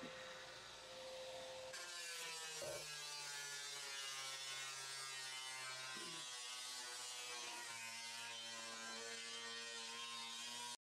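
A steady hum of several held tones begins about two seconds in, and its pitch shifts a few times.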